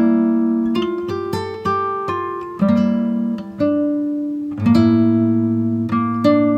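Background music: strummed acoustic guitar chords, a new chord about every second, each ringing out and fading, with no singing.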